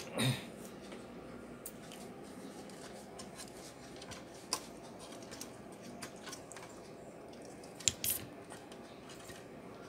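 Handling noise from an opened wireless speaker's enclosure being moved and fitted on a workbench: scattered light clicks and knocks, with a louder knock right at the start, a sharp click midway, and a sharp double click near the end.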